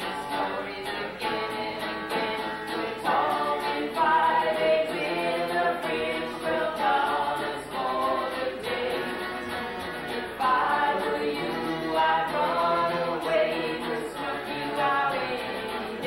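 Live band playing a song, with sung voices carrying the melody over a steady instrumental rhythm.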